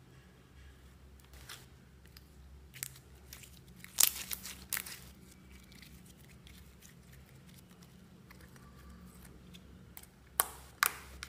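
Glitter slime being stretched and pressed flat by hand, giving soft sticky clicks and pops. A cluster of sharper pops comes about four seconds in, and two more come near the end.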